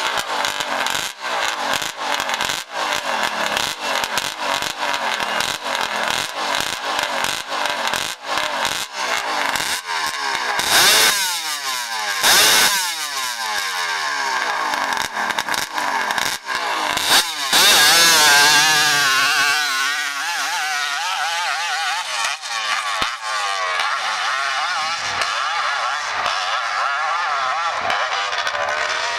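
A sport quad's engine revs in quick bursts while the quad is held on the start line. A little over halfway through it launches at full throttle, the loudest moment. The engine note then wavers and fades as the quad climbs away up the hill.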